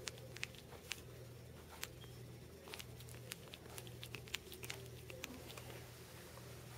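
Black Shih Tzu puppy moving on a plush blanket: faint, irregular little clicks and soft rustles, over a low steady hum.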